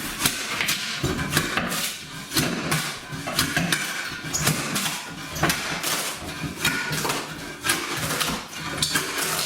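Workers tearing up old layered kitchen flooring: an unbroken run of irregular knocks, cracks and scrapes of wood and plywood, several a second.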